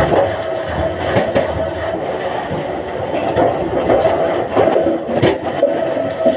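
Wood-mill machinery running with a steady hum and irregular knocks and clatter, the sharpest knock about five seconds in.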